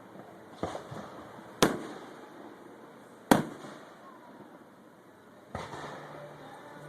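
Aerial fireworks going off: four sharp booms a second or two apart, the second and third the loudest, each trailing off in a short echoing rumble.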